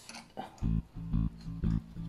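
Background music: a plucked bass guitar line with a steady rhythm starts about half a second in. Before it come a couple of light clicks.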